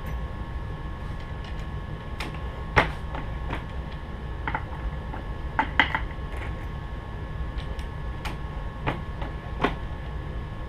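Hornady single-stage reloading press full-length resizing new brass .44 Magnum cases in a carbide sizing die: scattered, irregular clicks and clinks of the brass cases and press linkage, with one sharper knock about three seconds in, over a steady hum.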